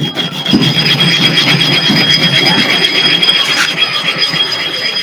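Sharpening stone ground against a flat iron bar spread with sand to flatten the stone's face: a steady gritty scraping with a high squeal running through it, cutting off abruptly at the end.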